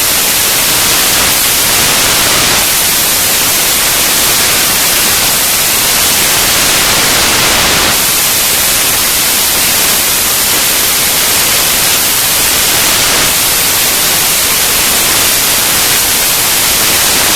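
A loud, steady hiss like static or white noise, even across the highs, shifting slightly in tone every few seconds.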